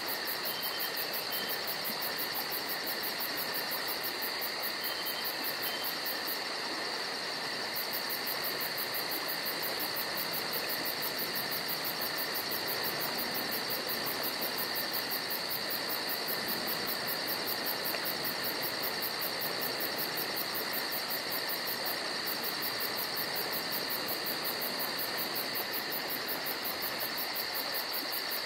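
A continuous chorus of crickets, trilling steadily in two high-pitched bands, with a fast, even, very high pulsing and a faint hiss underneath.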